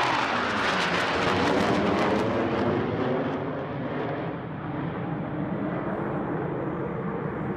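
Aircraft flying past. The engine roar is loudest in the first two seconds, then eases off to a steadier, quieter roar.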